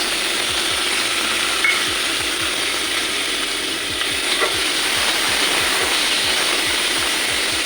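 Chopped tomatoes, onion and ginger-garlic paste frying in hot oil in a kadai, a steady loud sizzle that starts just as the tomatoes go in, with a faint clink about one and a half and four and a half seconds in.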